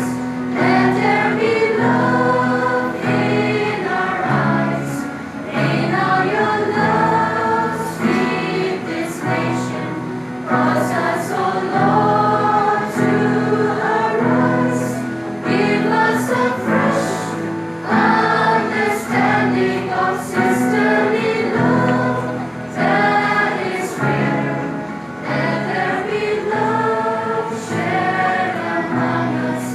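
A choir singing in phrases, with held low notes underneath that change every second or two.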